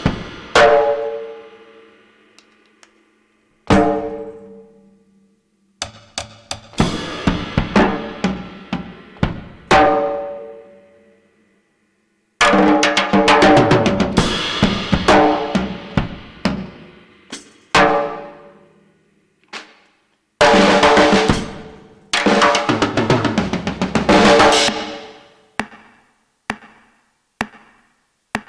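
Drum kit played in bursts of rapid hits on snare, bass drum and cymbals, each burst ringing out and dying away before a pause of a second or two. Near the end there are only a few scattered single hits.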